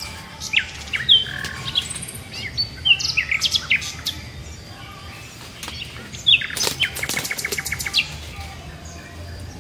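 Small birds chirping and tweeting with short, quick calls that sweep down in pitch, repeated throughout. About two-thirds of the way through there is a fast rattling run of clicks lasting about a second.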